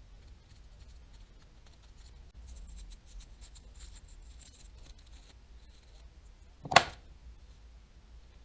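Faint clicks and scrapes of small reel parts and tools being handled, then one sharp clack just before the end.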